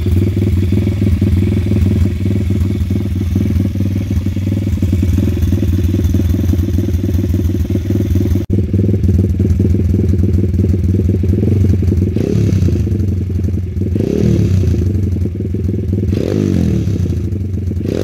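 Kurz FS 140 pit bike's 140 cc four-stroke single idling with a steady, even beat. After a sudden break about halfway through, the throttle is blipped about four times, each rev rising and falling quickly.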